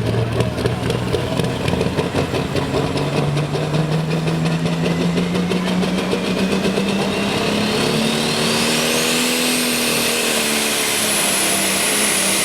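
Modified farm pulling tractor's turbocharged diesel engine running under heavy load during a pull, its note climbing slowly. A high turbo whine rises steeply about eight seconds in and then holds.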